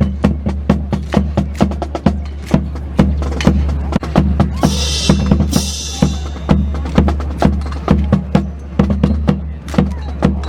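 Rhythmic percussion: sharp drum-like strikes about three to four a second over a steady low hum, with a brief bright rattle around the middle.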